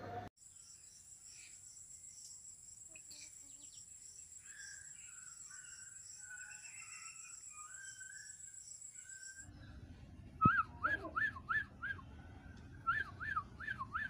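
A high, steady insect buzz with scattered bird chirps. After a cut, two short runs of quick rising-and-falling whistled notes, about three a second, with a sharp click as the first run starts.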